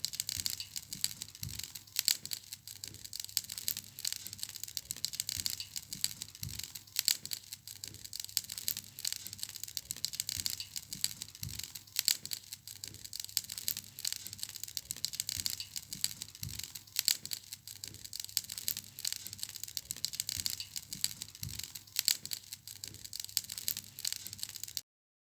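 Wood fire in a fireplace crackling: a dense, steady stream of sharp pops and snaps over a soft hiss, with a low soft thump every few seconds. It cuts off suddenly near the end.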